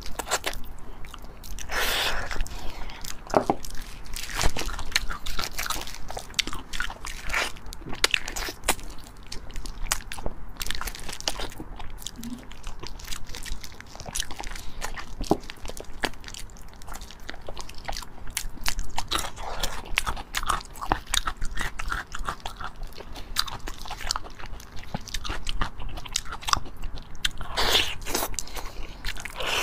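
Close-miked eating sounds of a woman chewing and biting into braised pork: irregular wet clicks and soft crunches that keep going.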